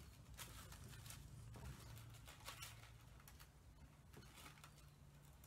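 Near silence, with faint, irregular scratches and light taps of a chalk pencil marking a paper pattern laid over fabric, over a low steady hum.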